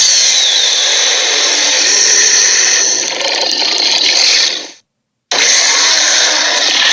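Dragon sound effect: a loud, harsh hissing roar in two blasts, the first about five seconds long and cut off abruptly, the second starting suddenly half a second later.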